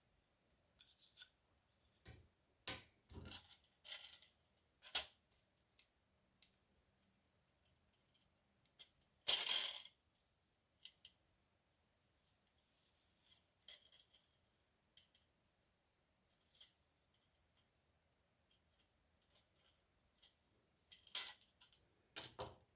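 Scattered clicks, taps and short scrapes of things being handled, with a louder half-second scrape about nine seconds in and two more near the end.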